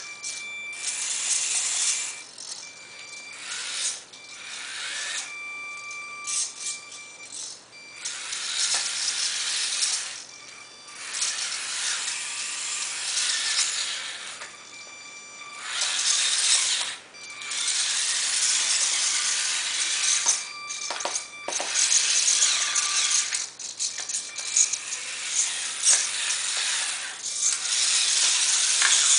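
Tiny electric motor and plastic gearbox of a 1/32-scale RC truck whirring, with a thin whine. It runs in bursts of one to a few seconds that stop and start again as the car is driven.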